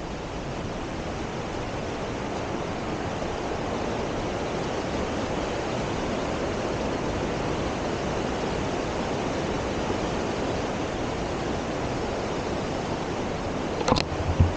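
Fast mountain creek and waterfall rushing through a rocky gorge: a steady wash of water noise that grows a little louder over the first few seconds. Near the end come a couple of sharp knocks.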